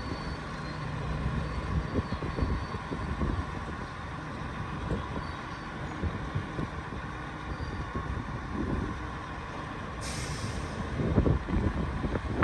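Bulldozer's diesel engine running steadily at work, with scattered knocks and clanks, and a short hiss about ten seconds in.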